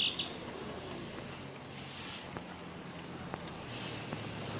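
Outdoor road noise among riding cyclists, with the steady hum of a car engine coming up behind the group and growing louder near the end. A few brief high chirps sound right at the start.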